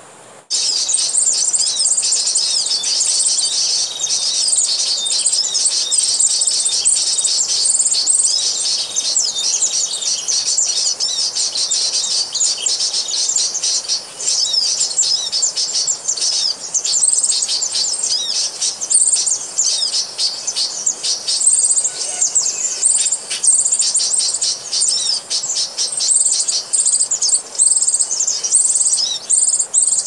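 A bird-call lure recording played loudly through a speaker to draw wild birds to the lime sticks: dense, rapid, high chirping and trilling that switches on abruptly about half a second in and cuts off suddenly at the very end.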